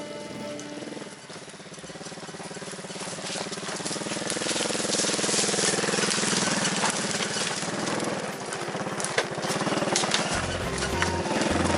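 A small motorcycle engine running as it is ridden, getting louder over the first few seconds. Background music with a thumping beat comes in near the end.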